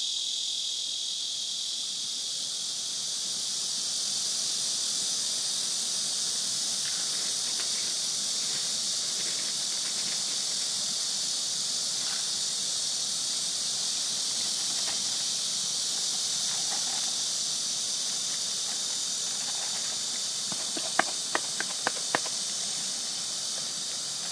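Steady, high-pitched chorus of insects in an outdoor field. Just before the end comes a quick cluster of about five sharp clicks.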